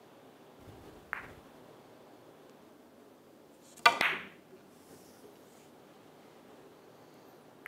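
Carom billiard balls clacking on a three-cushion table. About a second in there is a light click. About four seconds in comes the loudest, a sharp clustered clack as the cue strikes the cue ball, set up for maximum side spin, and it hits the red object ball thick. A lighter ball click follows near the end.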